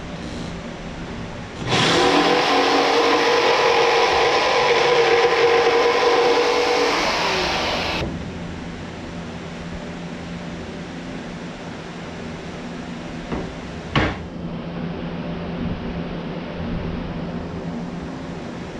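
Corded jigsaw cutting through plywood, starting about two seconds in and running steadily for about six seconds before stopping. A single sharp knock comes later.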